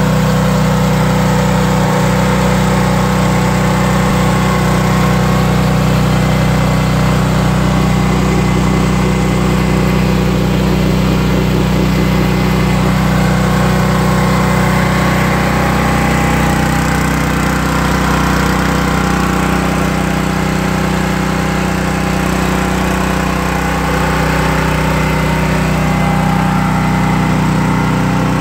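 Honda single-cylinder small gasoline engine powering a soft wash pump, running steadily at a constant speed.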